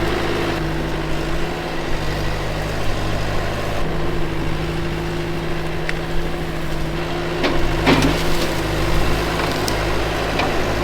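Bobcat skid steer engine running steadily as the machine handles trees and brush. A few sharp cracks of breaking wood come through, the loudest about eight seconds in.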